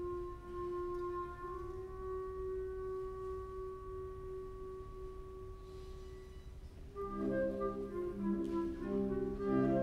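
Orchestra playing an overture: a single soft note held for about seven seconds, then brass and woodwinds come in with short repeated chords and the music grows louder.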